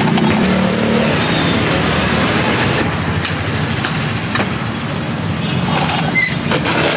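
Steady, loud street traffic noise with a low hum of passing vehicles. A few short clicks come over it in the second half.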